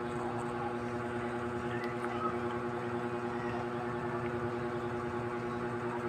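Portable hanging mini fan running: its small motor and spinning blades give a steady, even hum.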